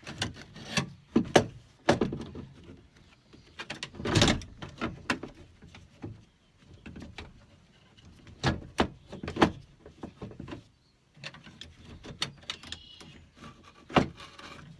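Irregular clicks, knocks and scrapes of the minivan's sliding-door lock and latch assembly being handled and worked back into place inside the door, with one heavier knock about four seconds in and a sharp click near the end.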